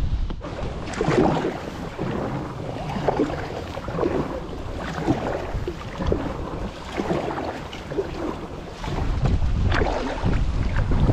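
Water splashing around an inflatable kayak with irregular paddle strokes, about one a second. Wind rumbles on the microphone at the start and again from about nine seconds in.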